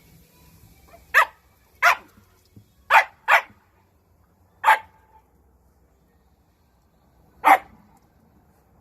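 Shiba Inu barking: six short, sharp barks at uneven intervals, two of them in quick succession and a longer pause before the last.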